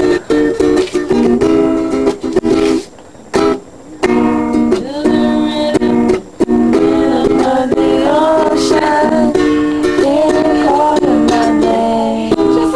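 Ukulele strummed in rhythmic chords, with a break of about a second around three seconds in before the strumming picks up again.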